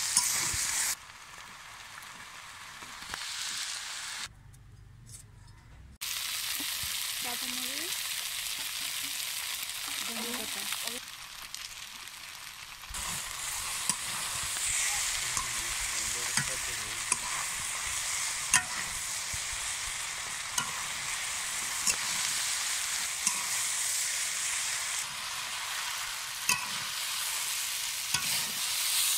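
Noodles with egg and vegetables sizzling in a large metal wok as a metal spatula stirs and scrapes them, with sharp clicks of the spatula against the pan, more frequent in the second half.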